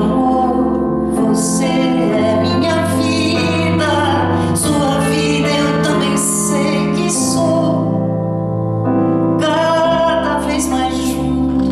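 A woman singing a ballad while accompanying herself on a Roland stage keyboard with a piano sound. She holds long sung notes over sustained chords.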